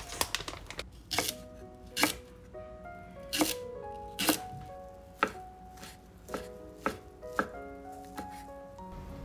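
Kitchen knife chopping a Japanese leek and fried tofu on a wooden cutting board: about fifteen sharp, irregularly spaced knife strikes on the board, with soft background music.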